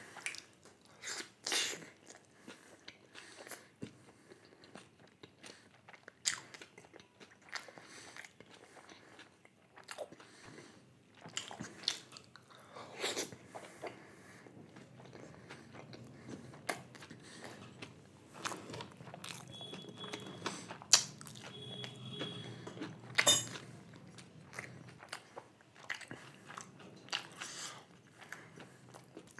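A person chewing and biting into chilly chicken momos close to the microphone: irregular wet mouth sounds and small crunches, with a few louder bites here and there.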